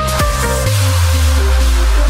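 Electronic dance music in the dubstep style: a run of sharp beats, then a deep, sustained bass that comes in about two-thirds of a second in and holds under a lighter repeating pattern.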